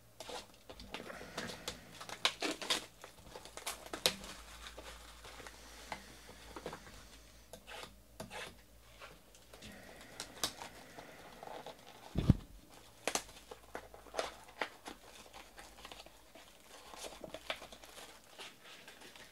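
Plastic shrink wrap being torn off a trading card box and crinkled by hand, in scattered crackles and taps, with a single thump about twelve seconds in; near the end the cardboard box flaps are opened.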